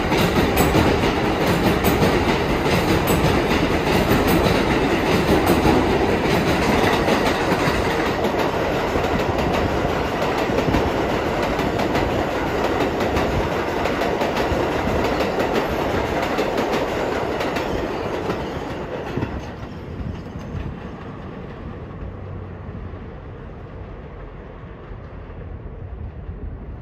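R188 subway train running on elevated steel track, wheels clattering over the rails in a steady rumble. It fades away over several seconds from about two-thirds of the way in as the train moves off.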